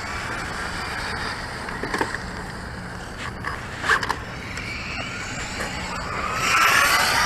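Radio-controlled car running on wet ground: motor whine over steady tyre hiss, growing louder with a rising whine near the end as it speeds up.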